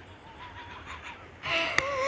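A young child making a high, wavering, whinny-like vocal noise that starts faintly and grows louder about one and a half seconds in.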